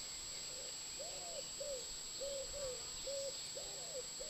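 Wood pigeon cooing: a run of low, soft coos in repeating phrases, each with a longer stressed note, about a second in and again about three and a half seconds in.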